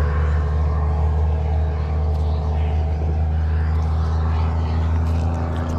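An engine running steadily close by: a deep, even hum that does not change in pitch.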